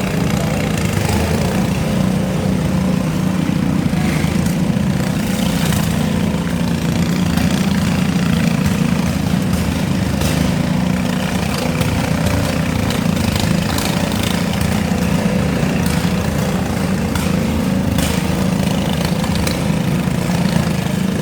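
Riding lawn mower engines running steadily together in a lawn mower demolition derby, with a few sharp knocks now and then.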